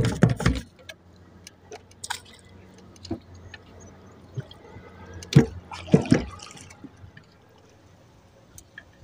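Water splashing and dripping with knocks and thumps as a drift gill net is worked by hand over a small boat: a burst of knocks at the start, scattered small clicks, and two louder thumps about five and six seconds in.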